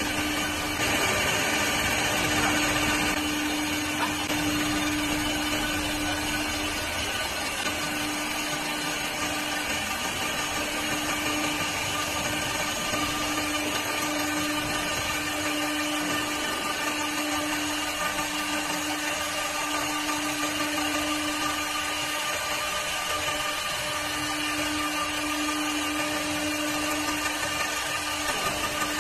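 CNC wood lathe running steadily as it turns wooden cue sticks: a constant motor hum with a few higher whining tones over the hiss of cutting.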